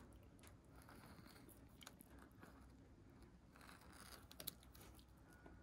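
Near silence with the faint scraping and ticking of a fine filleting knife cutting through a garfish's flesh along the backbone, with a few sharper ticks about four seconds in.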